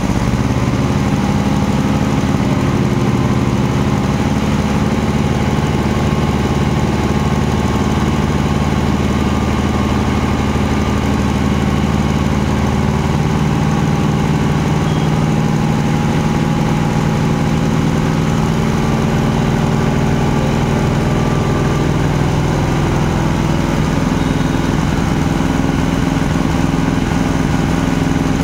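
A motor engine running steadily at low revs: a constant low hum whose loudness does not change.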